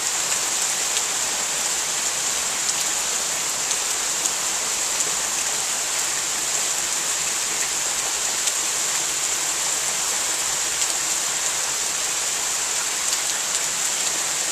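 Heavy rain pouring steadily during a thunderstorm: a dense, even hiss with a few faint taps of drops here and there.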